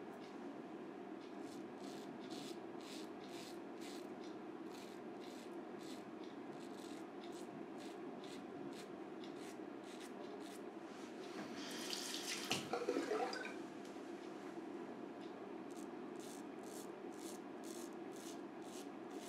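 Double-edge safety razor scraping through lathered stubble in short strokes, about two to three a second. Near the middle there is a brief, louder swishing sound.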